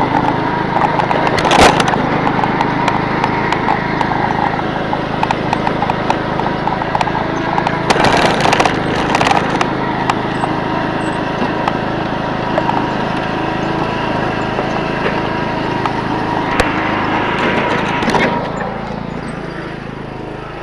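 A small engine runs steadily under a rough ride, with clattering knocks and scrapes now and then; it grows quieter near the end.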